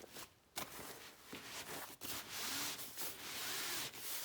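Fabric door draft stopper with foam tubes inside being pushed under a door, rubbing and scraping along the floor and door bottom, with a few light knocks in the first two seconds.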